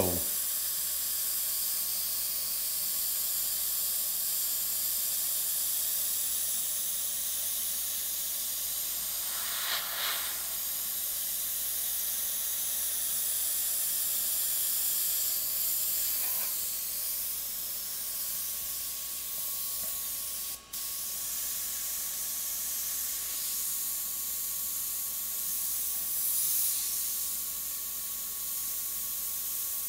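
Iwata HP-CS Eclipse airbrush hissing steadily as it sprays opaque yellow paint, building a soft glow, with one very short break about two-thirds of the way through.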